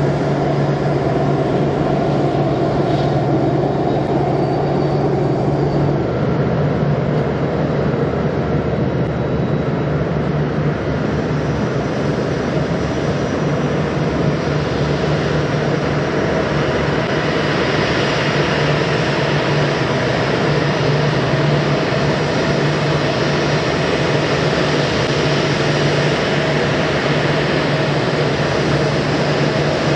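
Boeing 787-10 airliner's Rolls-Royce Trent 1000 turbofans running at taxi power as it rolls across the apron: a steady low hum under a broad rush of jet noise, with the hiss growing stronger from about halfway through.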